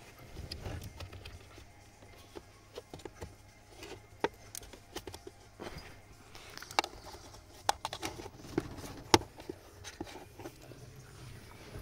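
Scattered sharp clicks and knocks of hands handling plastic trim and fittings under a car's dashboard, around the blower and cabin filter housing, the loudest about nine seconds in.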